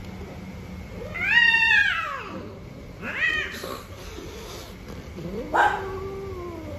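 Cats mating, the female in heat yowling three times: a long call that rises and falls about a second in, a shorter one around three seconds, and a long drawn-out call near the end.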